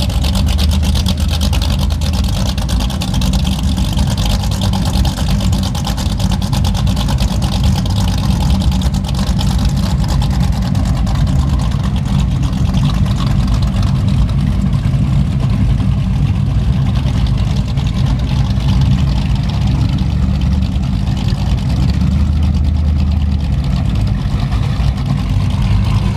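High-performance powerboat engines idling at low speed while the boat manoeuvres up to a dock: a steady, loud, deep engine sound.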